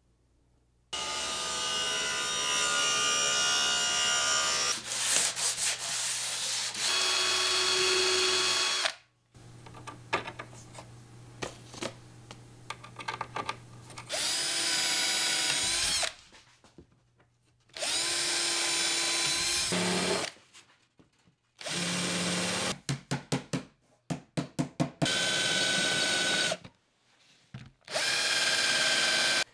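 Power drill running in a series of separate bursts of a few seconds each, its motor whine rising and falling as the trigger is squeezed and eased. About two-thirds of the way through it stutters in a quick run of short trigger pulses.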